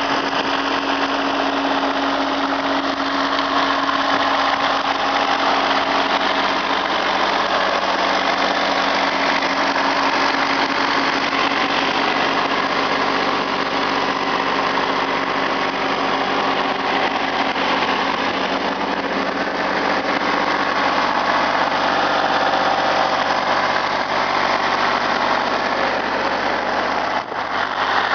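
New Holland TC29D tractor's Shibaura three-cylinder diesel engine running steadily at idle, with a brief dip near the end.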